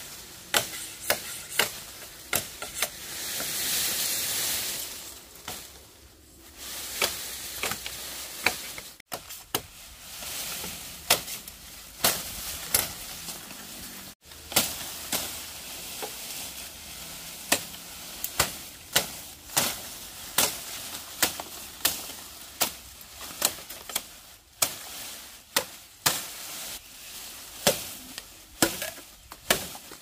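A steady series of sharp knocks or clicks, roughly one to two a second, with a stretch of hissing noise about three to five seconds in.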